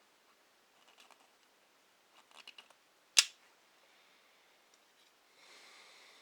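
Small handling noises from cleaning a Glock pistol frame: a few light taps and ticks, one sharp click about three seconds in, then a soft rubbing hiss near the end.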